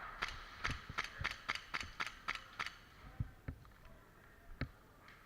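Airsoft gear making a run of about ten sharp mechanical clicks, roughly four a second, followed by three scattered clicks.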